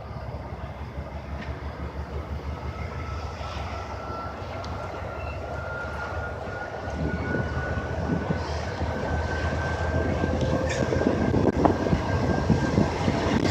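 Train running past and getting louder, its wheels clicking over rail joints more and more from about halfway in. A thin, high squeal runs along over the rumble.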